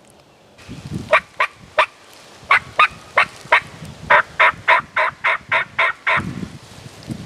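A series of about fifteen wild turkey yelps, short sharp notes at roughly three a second, coming in runs of three, then four, then eight.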